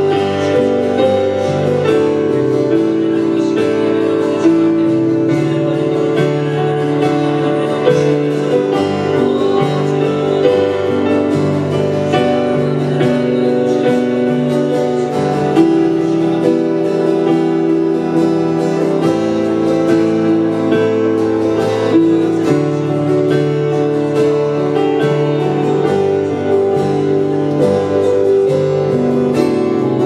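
Acoustic guitar strummed steadily under sustained keyboard chords, the chords changing every couple of seconds: slow worship music.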